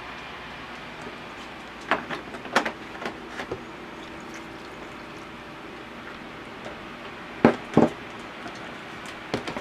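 Milk poured from a measuring cup into a blender jar packed with ice cream, with a few light knocks and clatters of the cup against the jar. About seven and a half seconds in come two sharp knocks in quick succession, as the cup is set down or the blender is handled.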